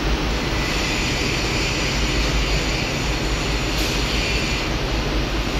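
Steady mechanical background noise in a workshop: an even low rumble with hiss, unchanging throughout.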